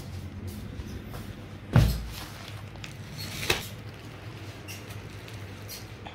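Handling noise from a phone camera being carried and moved about, over a steady low hum, with a heavy thump about two seconds in and a sharper knock about a second and a half later.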